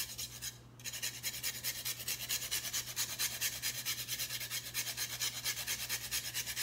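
Fresh ginger root grated on a metal rasp grater: quick, even back-and-forth scraping strokes, several a second, with a short break about half a second in.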